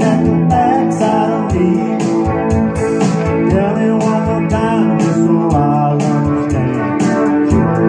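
Country music instrumental passage: an electric guitar playing lead over a band backing with a steady beat, its notes bending in pitch here and there.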